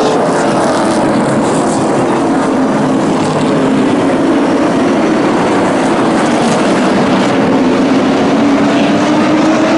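Engines of a pack of racing pickup trucks running hard around a short oval. Their note sinks over the first few seconds and climbs again near the end as the trucks go through the turns.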